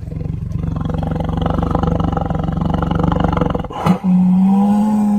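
A deep, rough animal roar played as a sound effect for about three and a half seconds. A sharp click follows, then a smooth, steady call at one pitch that wavers a little.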